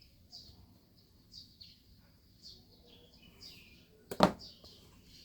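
A bird chirping over and over, short falling chirps about once or twice a second, with a single sharp knock about four seconds in.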